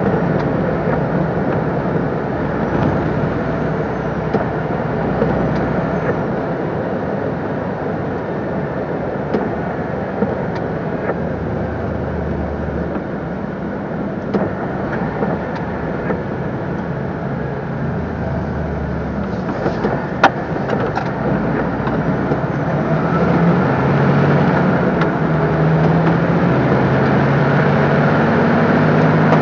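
A MAN TGS 26.320 lorry's six-cylinder diesel engine running under way, heard from inside the cab, with steady road and tyre noise. In the last few seconds the engine note rises in steps as the truck accelerates.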